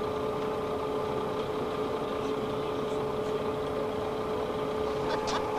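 Steady engine or machinery drone with a constant mid-pitched whine that holds unchanged throughout.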